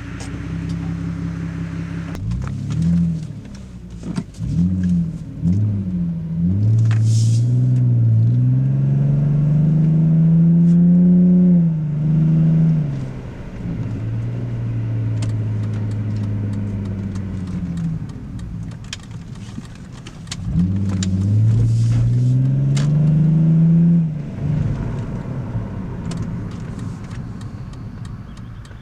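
BMW E46 Touring with a muffler-delete stainless exhaust, heard from inside the cabin while driving: the engine note climbs steadily as the car accelerates, drops sharply at gear changes about twelve and twenty-four seconds in, and holds steady while cruising in between.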